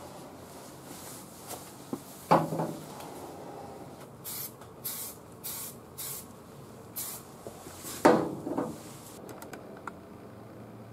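Aerosol spot blender (U-Pol Blend 9) hissing in about five short sprays midway, blending solvent misted over the dry edges of fresh clear coat to melt them in. Two louder knocks, one about two seconds in and one about eight seconds in.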